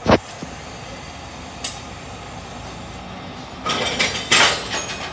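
Heritage railway train rolling slowly along the platform, with a steady low rumble. There is a thud right at the start and a cluster of clanks and rattles from the running gear near the end.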